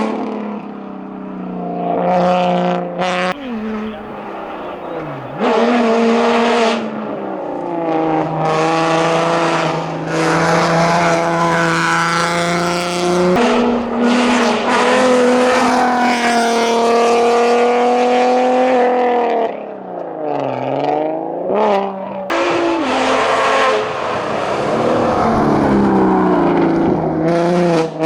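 Race car engine at full throttle on a hillclimb, revving up through the gears with short breaks at each shift, then slowing hard for a bend about twenty seconds in and accelerating away again.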